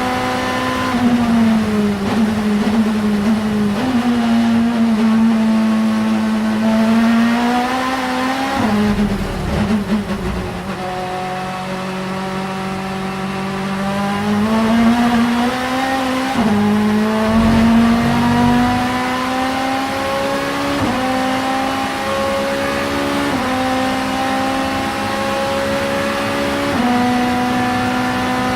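Vauxhall Vectra Super Touring race car's 2-litre engine pulling hard on track. The pitch rises as it revs, drops sharply at each upshift and falls away when it backs off for a corner. In the last third there is a run of three quick upshifts, each followed by a rise in pitch.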